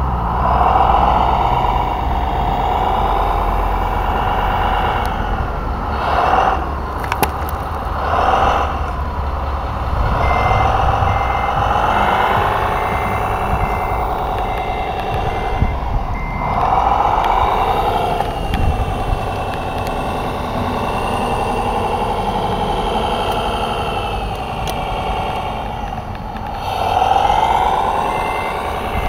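Radio-controlled scale model dump trucks and wheel loader at work: a whining drone that rises and falls with the throttle, with a high reversing beeper sounding in stretches, from about ten to sixteen seconds in and again near the end. A few sharp clicks come between about six and nine seconds in.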